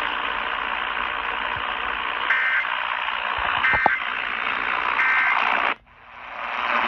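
Radio static with three short two-tone data bursts about a second apart: the Emergency Alert System end-of-message code, received over the air right after a test. Near the end the hiss cuts out suddenly for a moment and swells back.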